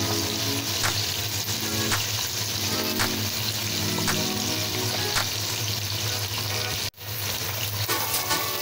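Chopped red onions and garlic sizzling as they fry in hot oil in a pot, with a metal slotted spatula clicking and scraping against the pot as they are stirred. The sound cuts out for an instant about seven seconds in.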